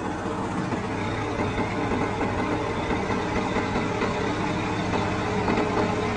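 Combine harvester running steadily, a constant engine drone with no change in speed.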